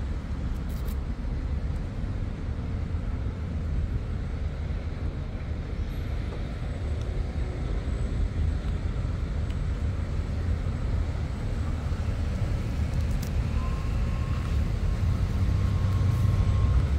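Steady low outdoor background rumble that grows slightly louder toward the end, with a steady high tone sounding for about three seconds near the end.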